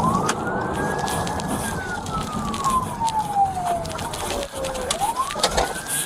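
Police car siren on a slow wail: it rises, holds, falls slowly for about three seconds, then rises again near the end. Under it runs the low rumble of the moving car.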